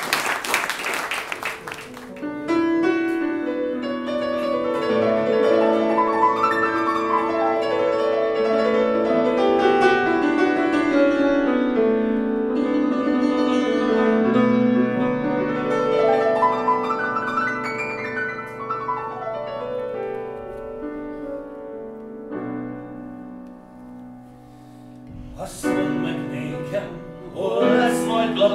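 Applause dies away about two seconds in. A grand piano then plays a slow introduction with sweeping rising runs, softening shortly before a man's voice comes in singing near the end.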